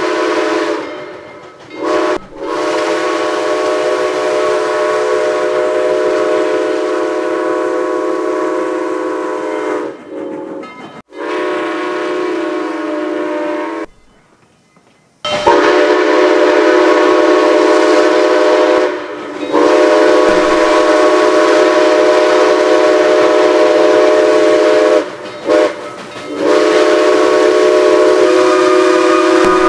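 Six-chime steam locomotive whistle, the 'Central of Georgia' chime of Southern Railway No. 4501, sounding one steady chord. It blows in a series of long blasts broken by a couple of short toots and a silence of about a second near the middle.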